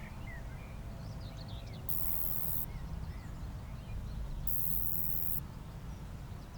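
Roesel's bush cricket stridulating: two separate bursts of very high-pitched buzzing, each just under a second long, about two and a half seconds apart. A steady low rumble runs underneath, with a few faint chirps.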